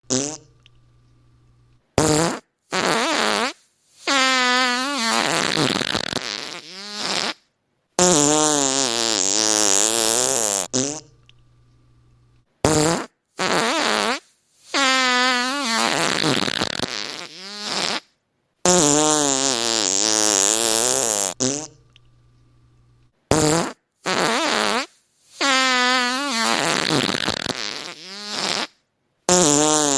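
A string of fart sounds: a couple of short blasts followed by long, drawn-out farts whose pitch wobbles up and down, with short pauses in between. The same sequence repeats about every ten and a half seconds.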